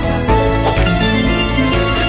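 Background music: an upbeat instrumental tune with a steady beat.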